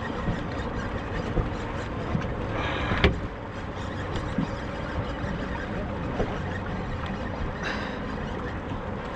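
Steady wind and water noise aboard a small open fishing boat, with a brief louder rush of wind or water about three seconds in.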